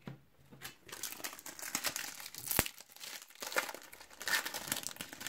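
Foil packet of Panini Champions League 2011/12 trading cards crinkling as it is handled and torn open, with one sharp snap about two and a half seconds in.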